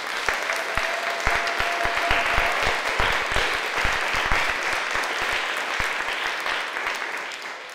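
Audience applauding: many people clapping, building up at the start and dying away near the end.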